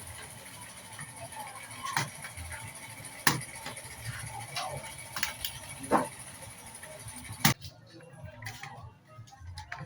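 Sharp plastic clicks and knocks from a laptop's top casing being pried off, four louder ones spread several seconds apart with smaller taps between.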